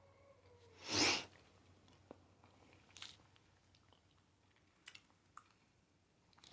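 A loud crunching bite into a Hot Cheeto-crusted fried pickle about a second in, followed by quieter close-up chewing with a few small crunches and mouth clicks.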